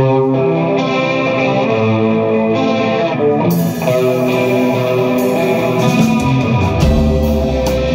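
Live rock band starting a song: an effects-laden electric guitar plays sustained chords, cymbals come in about three and a half seconds in, and bass and drum hits join near the end.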